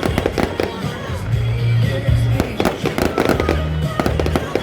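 Aerial fireworks bursting and crackling in rapid, irregular succession, over loud music with a heavy bass.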